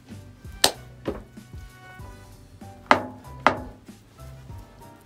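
Four sharp knocks from sushi being made at a wooden counter, in two pairs about half a second apart, over soft background music.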